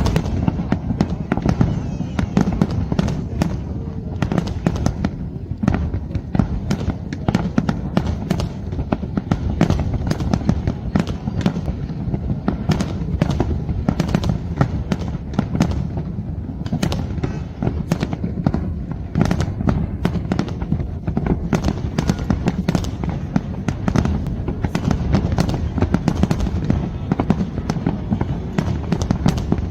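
Aerial fireworks display going off without pause: a dense run of bangs and crackles over a steady low rumble.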